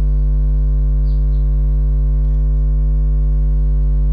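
Steady, loud electrical mains hum with a buzzy edge, picked up by the recording chain.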